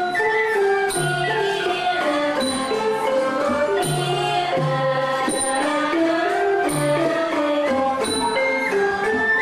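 Traditional Khmer folk dance music: a stepping melody of held notes over a steady beat of drum strokes.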